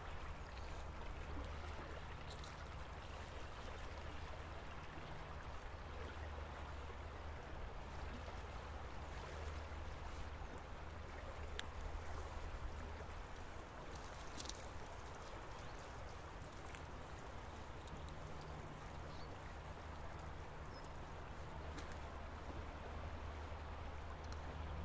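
Shallow river flowing over a gravel bed: a steady, even rush of water, with a steady low rumble underneath.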